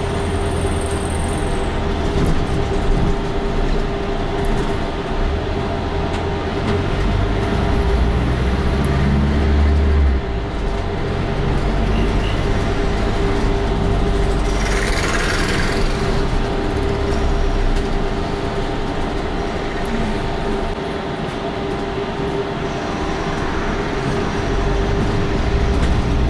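A London double-decker bus running, heard from on board: a deep engine and road rumble that swells and eases, over a steady hum. A brief hiss comes about halfway through.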